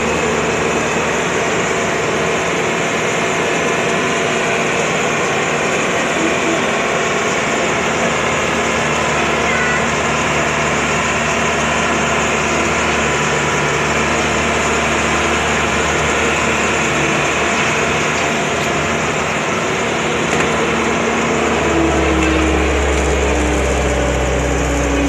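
Excavator diesel engine running steadily. Near the end a deeper, louder hum comes in, with a steady tone above it.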